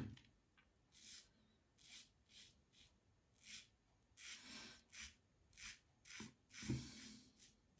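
King C Gillette double-edge safety razor with a BIC Astor blade scraping through lathered stubble in about ten short, faint strokes. Its bright ring is the sign of a very hard, clean cut, and the shaver judges by it whether a blade is sharp.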